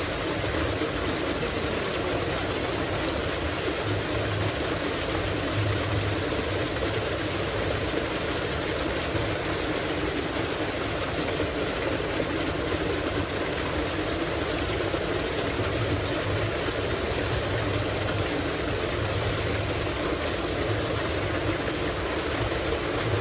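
Tubewell water gushing steadily from a wide outlet pipe into a concrete tank, a constant rushing splash, with a low engine-like hum underneath.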